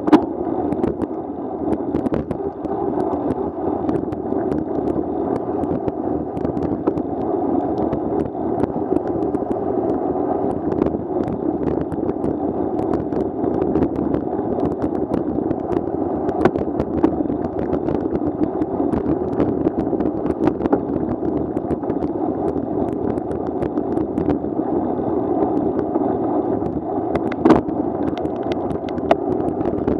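Steady, muffled rumble of a bicycle rolling over rain-wet pavement, with scattered small clicks and knocks and one louder knock near the end.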